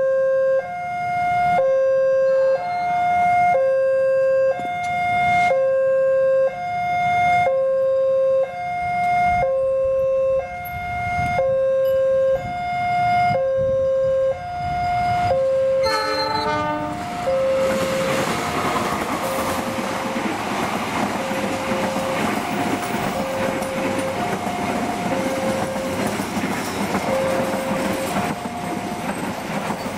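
Level-crossing warning bell sounding its two-tone alarm, alternating a lower and a higher tone about once a second. About sixteen seconds in, a diesel-locomotive-hauled passenger train arrives, and the steady running noise of the train on the rails covers the alarm, which goes on fainter beneath it.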